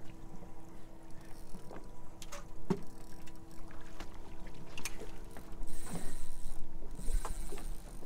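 A boat motor hums steadily at low speed, with scattered clicks and knocks from handling on deck. A high hiss comes in about two-thirds of the way through.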